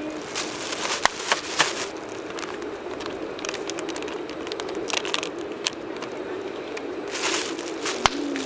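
Campfire crackling, with a few sharp pops of burning wood at irregular moments.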